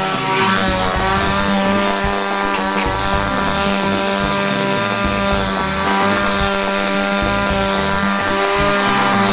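Chainsaw engine running steadily at an even speed, a constant buzzing drone.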